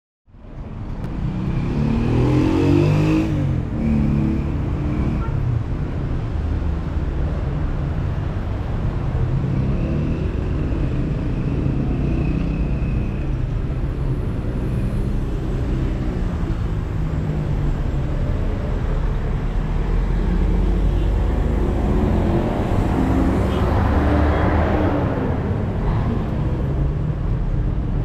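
Road traffic: cars driving along the street with engines running and tyres on the road. It fades in at the start, and vehicles pass close by at about three seconds and again at about twenty-four seconds.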